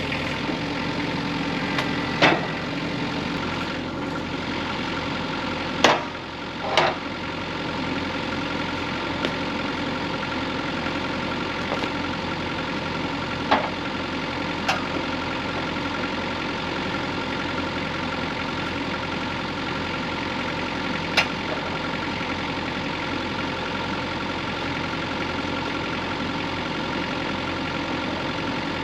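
Engine of a small manual portable bandsaw sawmill running steadily, with a few sharp knocks or clanks: one about 2 seconds in, two close together around 6 to 7 seconds, and single ones around 13 and 21 seconds.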